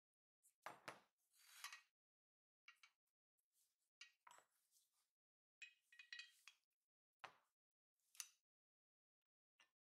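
Faint metallic clinks and clatters of steel spanners, pliers and brass blowtorch parts knocking together and being set down on the worktable as the torch is dismantled, a string of separate knocks with short gaps between them.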